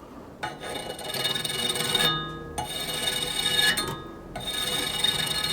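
Sharpening strokes along the steel edge of a homemade ice saw blade, three long strokes with short pauses between, the steel ringing with high tones under a rough scraping hiss.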